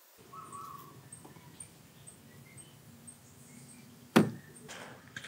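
Coolant pouring from a plastic jug through a funnel into an SUV's radiator, a low steady sound. One sharp knock about four seconds in.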